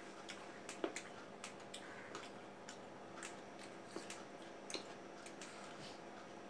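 Watermelon being bitten and chewed: irregular wet clicks and smacks of eating juicy fruit, over a faint steady hum.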